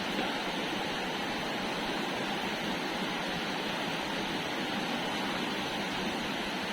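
Waterfall: falling water rushing steadily, an even roar with no change in level.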